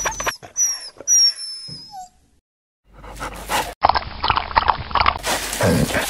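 A dog whimpering: several high, thin whines that fall in pitch during the first two seconds, then after a short pause a run of quick, breathy sounds, like sniffing or panting.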